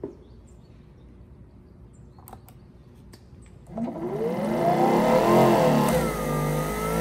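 A few faint clicks, then about two-thirds of the way in the Greenworks Pro 3000 PSI electric pressure washer's brushless motor and pump start up. Its whine rises in pitch, dips, then settles into a steady run with a hiss of spray over it.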